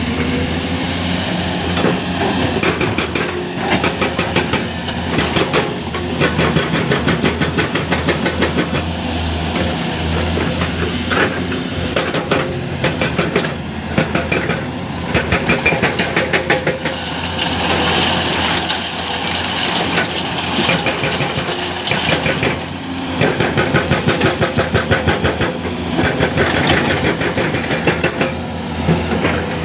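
Excavator-mounted hydraulic breaker hammering in bursts of a few seconds, each a fast, even run of blows, over the steady running of the excavator's diesel engine.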